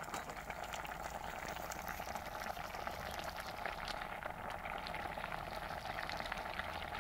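A pan of chicken, lentil and leafy-greens broth boiling: a steady bubbling hiss scattered with many small pops.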